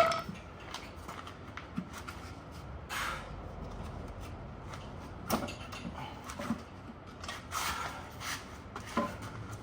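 Scattered knocks and clunks, with a couple of longer scrapes, as a Mazda Miata transmission is worked loose from the back of the engine after being pried apart.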